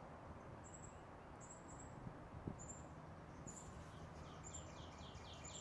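Faint songbird calling in woodland: a few short, high chips, then from about halfway a fast run of repeated high, downward-sliding notes, about five a second.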